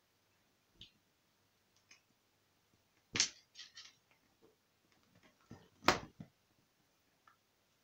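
Light knocks and taps as a cat paws and bumps against an open laptop on a sofa: a few scattered taps, with two sharper knocks about three seconds in and just before six seconds.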